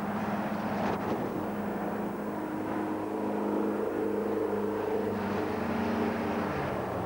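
A vehicle engine running, a steady hum whose tones shift and thicken from about two seconds in, as if the revs change. A short click about a second in.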